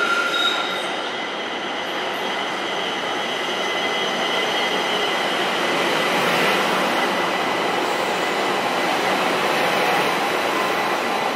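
Light-rail train running along the platform of an underground station: steady rumble of wheels on rail, with high, steady wheel squeal over it for the first few seconds before it fades out.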